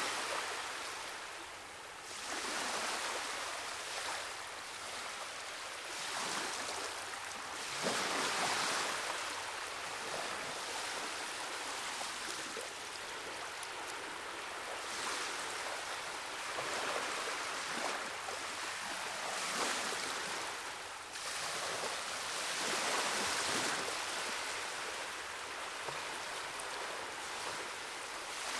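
Ocean surf washing in: a steady hiss of rushing water that swells and fades every few seconds.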